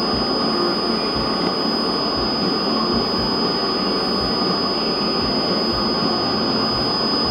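CNC vertical milling machine running steadily, a constant high whine over a noisy hiss.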